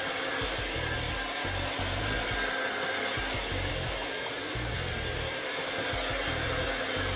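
Handheld hair dryer running steadily, blowing on a client's head and neck after a haircut: an even, constant rush of air with a faint steady whine.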